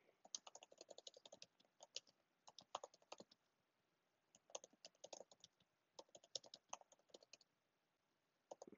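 Faint typing on a computer keyboard: rapid key clicks in several short runs, with brief pauses between them.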